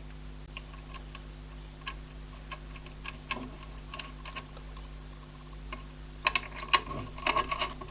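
Small clicks and light metallic taps of CPU cooler mounting hardware being handled and screwed into place on the motherboard. The clicks are sparse at first, then come in a quick irregular run from about six seconds in.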